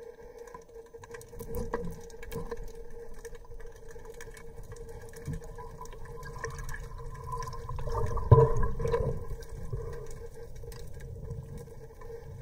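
Muffled underwater sound through a camera housing: low water movement with a steady hum and scattered faint clicks, and one sharp knock a little past eight seconds in.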